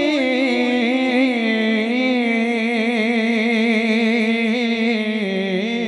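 A man's solo voice singing a Punjabi naat into a microphone, holding one long note with vibrato for about five seconds. The note steps down slightly near the end and then fades.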